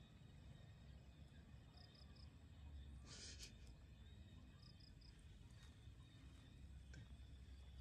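Near silence: faint outdoor ambience with a soft high chirp of three quick notes repeating every few seconds, and one brief rustle about three seconds in.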